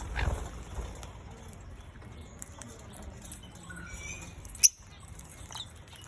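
Small parrots in an aviary making short, faint high chirps with some rustling and flapping. There is a dull knock right at the start and one sharp click a little over four and a half seconds in.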